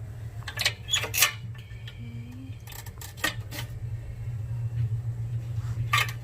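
A few short clicks and knocks from handling at the glass aquarium as masking tape is laid along its joints, over a steady low hum.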